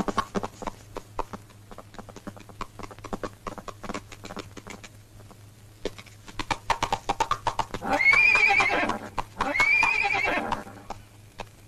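A horse galloping, its hooves clattering in quick knocks, then two loud whinnies about eight and nine and a half seconds in. A low steady hum runs underneath.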